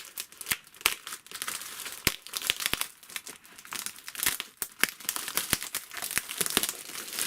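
Packaging being unwrapped by hand: irregular crinkling and crackling of wrapping, with some tearing.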